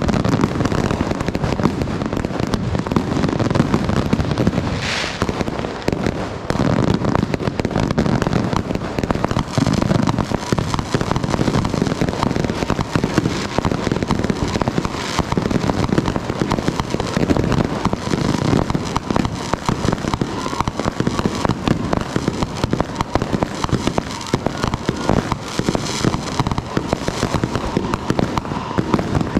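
New Year's firecrackers and fireworks going off in a dense, continuous rattle of pops and crackles, with a brief higher-pitched burst about five seconds in.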